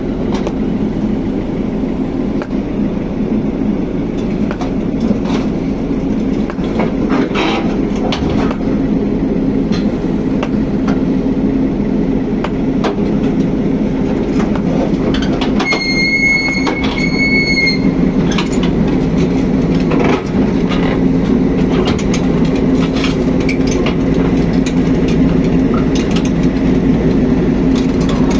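Tracked excavator travelling: its diesel engine runs steadily while the steel track links clank continuously. About halfway through, a high-pitched tone sounds for about two seconds.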